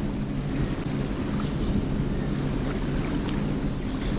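Steady low motor drone with an even wash of wind noise, unchanging throughout.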